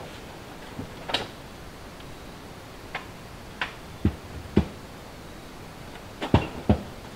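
Scattered knocks and dull thuds, about eight in all, as gear is handled at a car: a few light knocks in the first half, then two pairs of heavier thumps.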